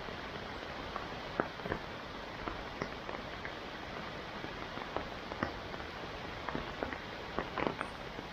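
Uchan-Su waterfall running high with snowmelt: a steady rush of falling water with many scattered splashes and drips.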